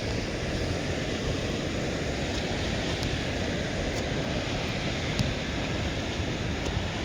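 Steady, even hiss of falling rain, with a few faint ticks.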